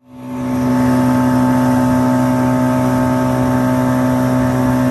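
Yamaha jet boat running at speed, its engine holding a steady drone over the rush of the water. The sound fades in over the first half second.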